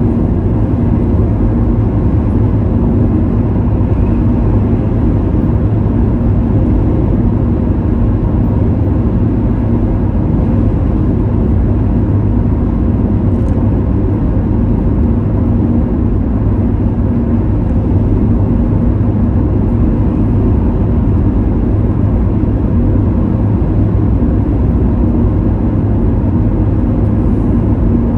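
Steady tyre and engine drone heard from inside a car cruising at motorway speed: an even low rumble with a constant hum.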